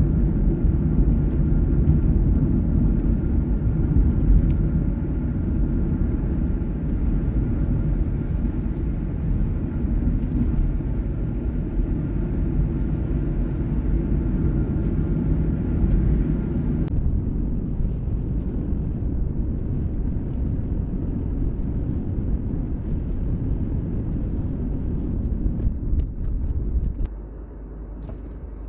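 Steady low rumble of tyres and engine from a vehicle driving along a highway, heard from inside the cab. The sound changes abruptly about two-thirds of the way through and drops quieter near the end.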